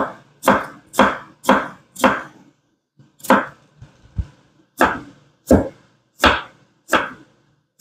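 Chef's knife dicing an onion on a wooden cutting board: sharp knife strikes on the board about two a second, with a pause of about a second partway through.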